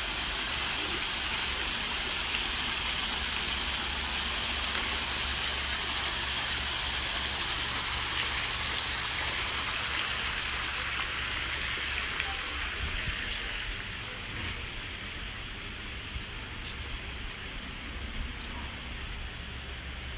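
Thermal spring water running and splashing over a mineral-crusted pool edge: a steady watery hiss that gets somewhat quieter about fourteen seconds in, with a low rumble underneath.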